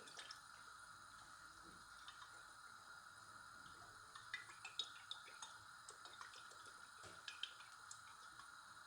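Near silence: a pan of oil heating on the hob, giving a few faint, scattered ticks and crackles over a faint steady hum.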